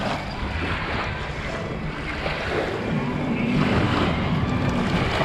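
Small waves washing and breaking onto a sandy river shore, with wind buffeting the microphone. A low, steady engine drone runs underneath.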